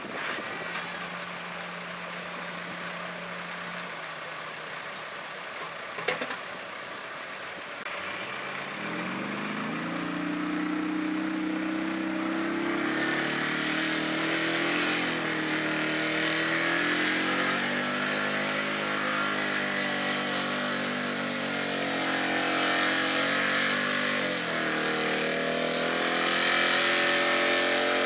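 Pickup truck engine running at full throttle pulling a weight-transfer sled. It revs up about eight seconds in and holds high under load, its pitch sagging and climbing again near the end, with the hiss of tyres throwing dirt. Before that, a quieter steady engine hum and a single sharp click.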